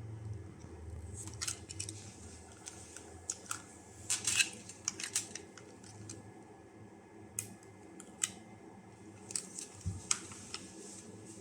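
Scattered light clicks and taps of small tools and a probe being handled on an electronics workbench, with a quick cluster of them about four to five seconds in.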